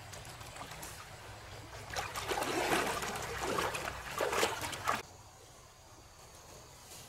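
Water splashing and trickling, much louder for about three seconds from two seconds in, then cutting off suddenly.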